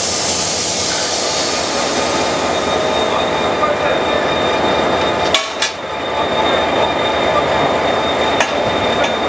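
Steady running noise of an idling Korail diesel locomotive beside its coupled coach, with a hiss that fades over the first few seconds. Sharp metallic clanks come twice in quick succession about five seconds in and once more near the end, as the coupler and hoses are worked loose for uncoupling.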